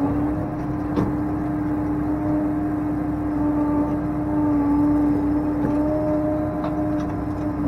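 Case IH tractor's diesel engine running with a steady drone, heard from inside the cab while it drives with a round bale on the front loader. There is a single knock about a second in.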